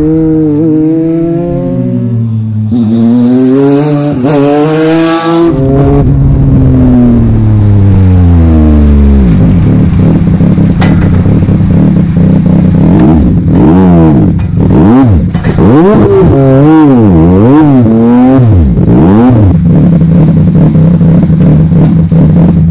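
Legends car's motorcycle engine heard from inside the cockpit. It is driven hard with the revs stepping through gear changes, then winds down with steadily falling revs as the car slows. It then idles, blipped up and down about eight times in quick succession before settling back to a steady idle.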